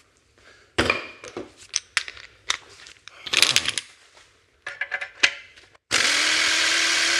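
Metal clinks and knocks of a socket being fitted onto a rusted exhaust flange bolt, then about a second before the end a cordless ratchet's motor starts and runs steadily.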